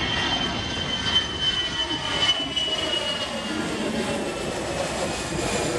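Airplane engine noise, loud and steady, with a high whine that slowly drops in pitch and fades after about three seconds.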